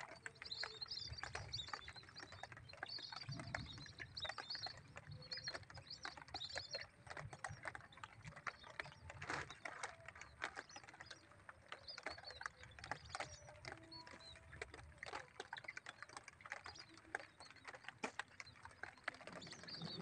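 Wind rumbling on the microphone, with faint, repeated high bird calls and many scattered light clicks.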